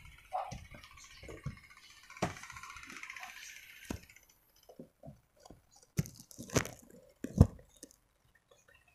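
Irregular knocks and clicks picked up by a phone's microphone, with a faint hiss for the first few seconds; the loudest knock comes about seven and a half seconds in.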